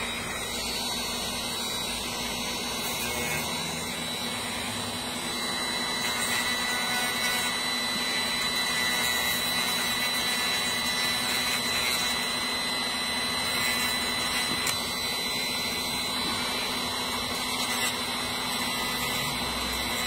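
Dremel rotary tool running steadily with a small sanding drum, grinding down the cut end of an electric toothbrush, with a steady high whine over the motor's hum.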